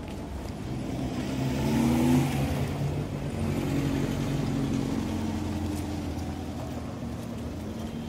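Street traffic: a car's engine swells as it drives past, loudest about two seconds in with a brief rise in pitch, then another engine keeps running steadily.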